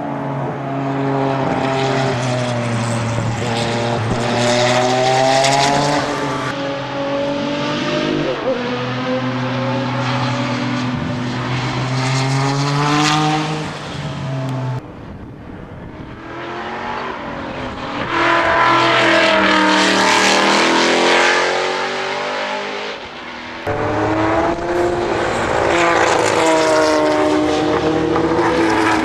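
Group C endurance prototype race cars at speed, their engines accelerating and passing one after another. The engine note climbs and drops repeatedly, with a brief dip about halfway through and again near 23 s where one pass gives way to the next.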